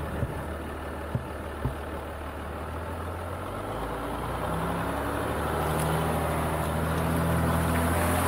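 Jeep Wrangler engine running at low speed while crawling along a rough, muddy trail, with a few sharp knocks in the first two seconds. About halfway through the engine note rises slightly and the sound grows steadily louder.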